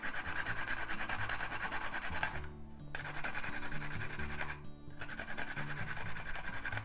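Fresh ginger, skin on, rubbed back and forth on a plastic grater in quick rasping strokes, pausing twice, over background music with low sustained notes.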